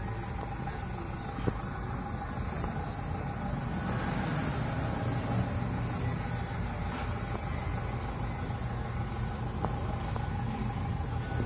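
Ford Bronco engine idling steadily through new headers and a true dual exhaust with Flowmaster mufflers.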